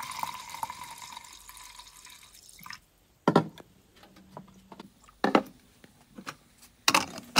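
Water poured into a stainless steel pressure cooker pot over soaked dried corn kernels: a filling sound with a steady pitch that fades out about two seconds in. Then three sharp knocks, roughly two seconds apart.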